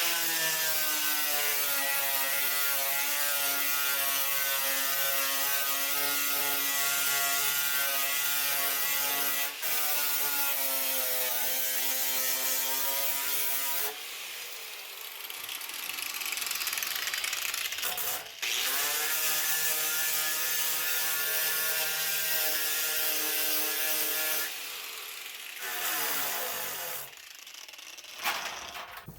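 Angle grinder with a paint-stripping disc grinding paint off a steel body panel down to bare metal, its motor running with a steady whine. About halfway through it gives way for a few seconds to a quieter rasping, then runs steadily again before winding down near the end.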